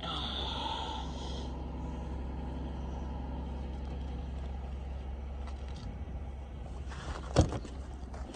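A car engine idling steadily with a low hum. There is a brief higher-pitched sound in the first second and a single sharp knock about seven seconds in.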